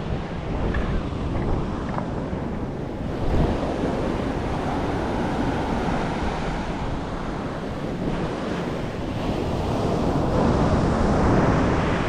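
Ocean surf washing onto the beach, mixed with wind buffeting the microphone in a steady low rumble that swells a few times.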